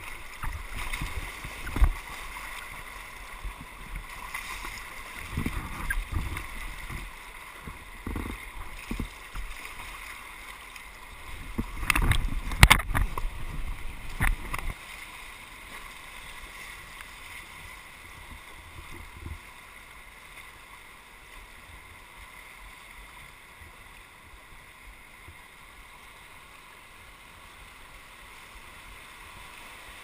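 Whitewater rapids rushing past an inflatable kayak, heard from a camera mounted on the boat. In the first half there are repeated splashes and thumps, the loudest cluster about twelve seconds in. After about fifteen seconds only the steady rush of water remains.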